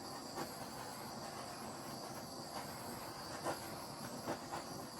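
Steady hiss of a small handheld torch flame burning, with a few faint ticks.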